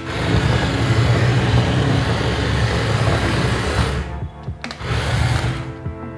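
Small electric motor and plastic gearbox of a toy remote-control JCB excavator whirring steadily. It stops about four seconds in, runs again briefly, then stops, with background music.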